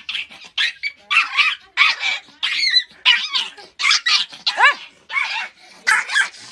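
Small Pomeranian yapping in quick, high-pitched barks, about two to three a second, with one longer yelp that rises and falls a little past the middle.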